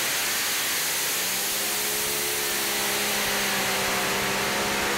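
Heavy Modified pulling tractor with four Brad Anderson V8 engines running flat out as it pulls the weight sled: a steady, even noise with a faint engine tone that comes in about a second in.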